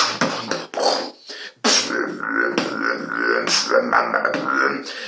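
Human beatboxing, performed with bubble gum in the mouth. Quick vocal-percussion hits, a brief pause about a second and a half in, then a held pitched hum with more hits over it.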